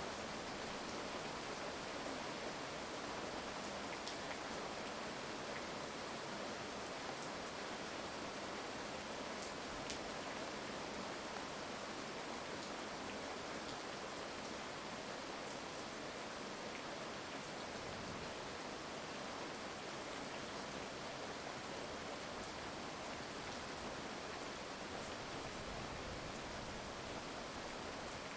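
Heavy rain falling steadily, an even hiss with a few scattered sharp drop ticks.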